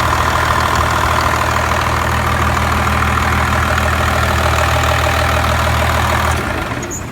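Truck engine idling steadily with the AC compressor clutch engaged and the compressor spinning; a steady low hum that drops off near the end.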